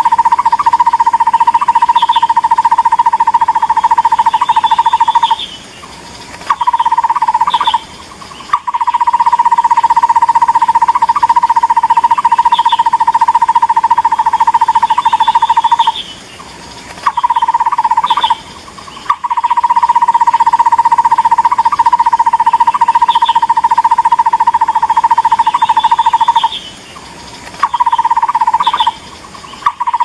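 Looped lure recording of a takur bukit barbet calling: a rapid, even run of hollow notes on one pitch, held for about five seconds at a time. Short pauses and briefer bursts break the runs, and the sequence repeats about every ten seconds.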